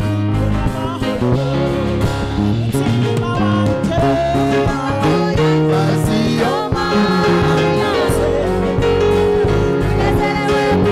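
A gospel choir singing through microphones, women's voices leading, over instrumental accompaniment with a steady beat.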